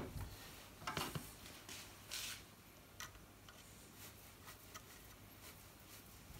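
Light clicks, taps and short scrapes of small metal parts and a screwdriver being handled at a workbench, with one sharper knock at the start and a few clicks over the first three seconds, then only faint ticks.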